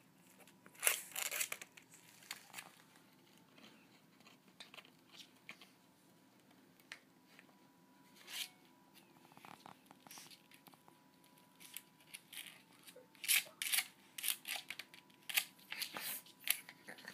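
Puppy gnawing and nosing at a large knotted rawhide bone: irregular scraping, crunching and clicking sounds, with a quicker run of louder ones in the last few seconds.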